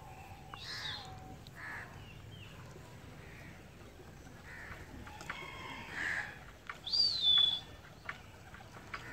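Crows cawing now and then, with other scattered bird calls. About seven seconds in comes one loud whistle that rises and then falls away.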